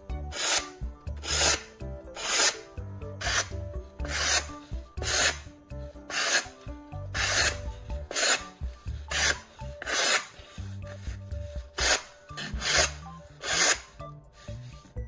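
Kitchen knife slicing through a sheet of paper to test its freshly sharpened edge: a short rasping cut about once a second, about fifteen in all, over background music.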